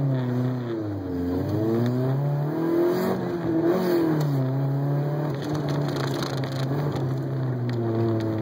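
1988 Honda CRX's four-cylinder engine, heard from inside the cabin while the car is driven hard around an autocross course. The engine revs up and down with throttle and gear changes, rising and falling several times. It holds a steady pitch for a few seconds past the middle, then dips and climbs again near the end.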